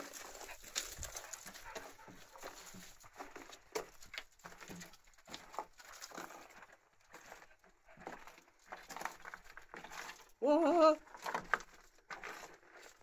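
Footsteps and paws scuffing over leaf litter and grit, a steady patter of small scrapes and clicks. About ten and a half seconds in, one short puppy yelp, the loudest sound.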